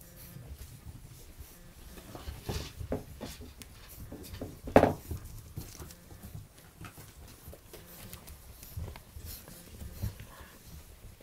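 Eight-week-old Bullmastiff puppies playing: paws pattering and scuffling on the floor and toys knocking about in short irregular knocks, with one short, much louder sound about five seconds in.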